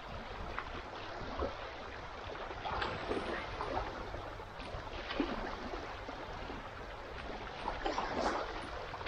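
Water lapping and gurgling against a small boat's hull in irregular little splashes, over a steady low rumble.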